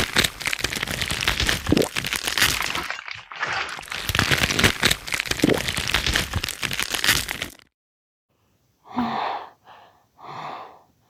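Gore sound effect of flesh ripping and bones breaking: a dense run of cracking and crunching that stops suddenly about seven and a half seconds in. After a moment of silence come a few heavy breaths or gasps.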